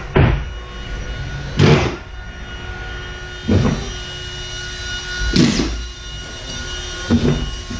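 Five dull thuds, roughly every two seconds, from drywall work on a building site, over a steady mechanical hum.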